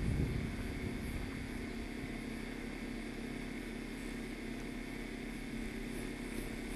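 Steady outdoor background noise on a camcorder microphone, with wind rumbling on the microphone at the start, then settling to an even hiss.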